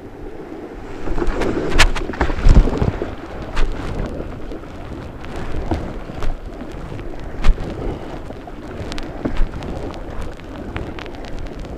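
Kayak paddling on a river: water splashing and rushing from the paddle strokes and around the hull, with wind rumble on the microphone and several sharp knocks scattered through it.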